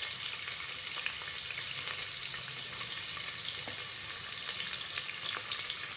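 Sliced onions frying in hot oil in an aluminium pressure cooker: a steady sizzling hiss with scattered faint crackles.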